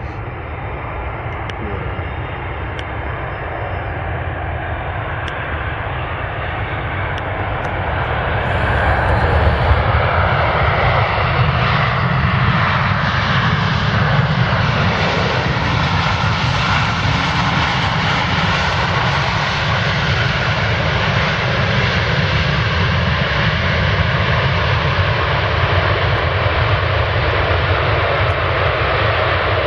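KLM Boeing 737 airliner landing and rolling out along the runway, its jet engines making a steady rush and rumble. The noise swells sharply about eight seconds in and stays loud as the aircraft passes close by.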